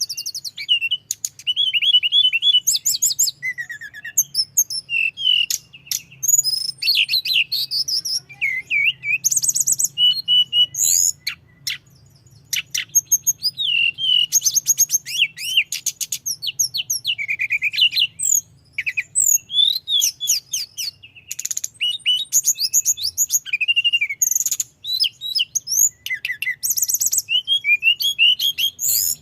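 A tledekan gunung songbird singing continuously in long rolling runs of quick chirps, rattling trills and sliding whistles, broken only by brief pauses, over a faint low hum.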